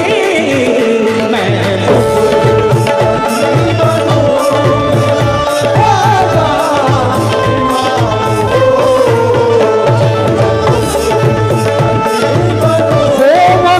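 Live qawwali music: a harmonium and an electronic keyboard play gliding melody lines over a steady tabla beat.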